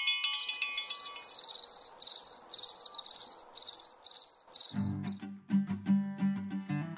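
Crickets chirping in a steady rhythm, about two high chirps a second, over a faint hiss of evening ambience, as a chime fades out at the start. Strummed acoustic guitar music comes in about five seconds in and takes over.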